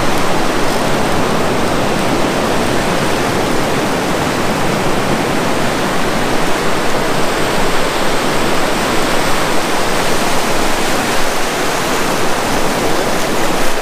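Steady rush of surf washing and foaming over a rocky shoreline, an even roar of water with no distinct breaks.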